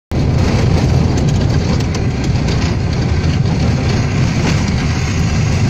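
A vehicle travelling along a dirt road: a steady low rumble of engine and road noise with scattered rattles and clicks.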